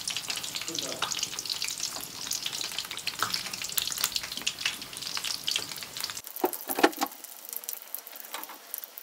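Makrout (semolina and date pastries) frying in hot oil, a dense sizzling crackle. About six seconds in the crackle turns quieter, with a few sharp clicks just after.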